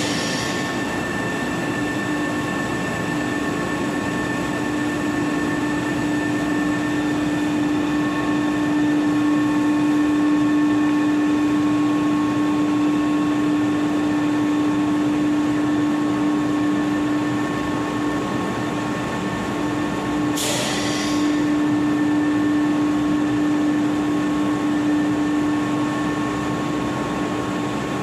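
Electric floor-cleaning machine running with a steady motor hum, broken twice by a short hiss, once at the start and once about twenty seconds in.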